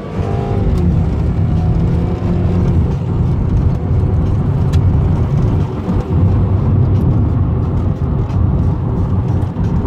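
Subaru's turbocharged 2.5-litre flat-four pulling hard under acceleration, heard from inside the cabin: the engine note climbs with the revs, then drops back as the automatic shifts up a few seconds in. The owner feels the turbo come on but judges the engine well down on its original 230 hp.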